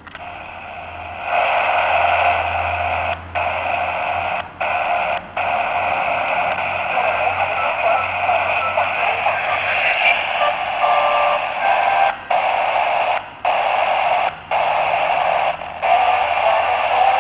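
FM radio built into a Little Rabbit torch flashlight hissing with static through its small speaker, the hiss starting about a second in and cutting out briefly about seven times as the auto-scan radio is worked.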